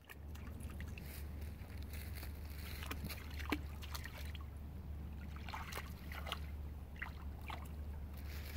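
A dog's paws splashing as it wades through a shallow stream, in irregular steps with one louder splash about three and a half seconds in, over a steady low rumble.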